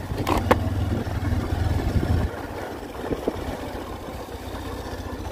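Small commuter motorcycle's engine running as it is ridden slowly, steady and low, getting quieter about two seconds in. Two short clicks near the start.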